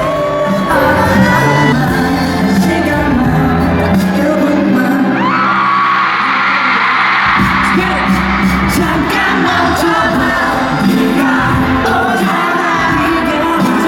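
Live K-pop song with a male voice singing over a heavy beat, heard through a concert hall's sound system. About six seconds in the bass and beat drop out for a moment, then come back.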